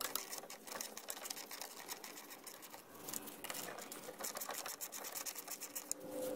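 Hand ratchet clicking in rapid runs while the small screws holding down an outboard's water pump housing are backed out.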